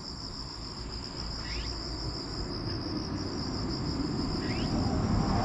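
Insects chirring steadily in a high, pulsing drone, with two brief rising chirps, over a low rumbling noise that grows louder toward the end.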